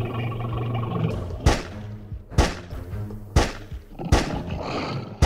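Four sharp bangs about a second apart over steady background music.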